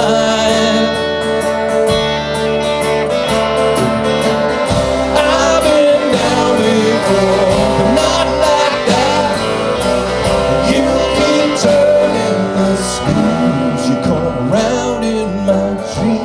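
A live band playing between sung lines: acoustic guitar strumming over bass, with a steady drum beat.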